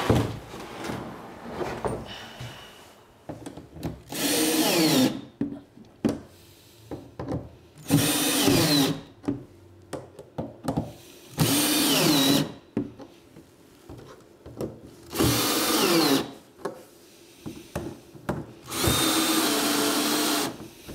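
Cordless drill driving the bolts that fasten plastic Hyfax runners to a polyethylene sled, in five bursts of about a second each. The motor pitch falls near the end of several bursts as the fasteners draw tight, and light clicks of hardware being handled come between them.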